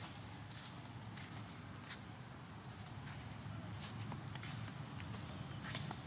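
Steady high-pitched drone of forest insects, cicadas or crickets, with a few faint clicks scattered through.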